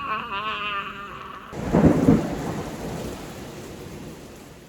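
Steady rain falling. About a second and a half in, a loud clap of thunder breaks out, rumbles and slowly dies away.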